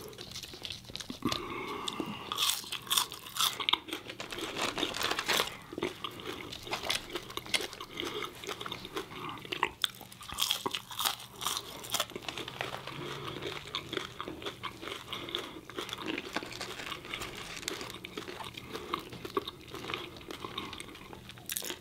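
Close-up eating sounds: two people biting and chewing French fries and a crispy fried chicken sandwich, with frequent irregular crunches and wet chewing.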